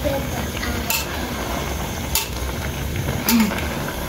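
Metal slotted pasta server stirring boiled spaghetti in an aluminium pot, with three sharp clinks of metal on the pot spread about a second apart.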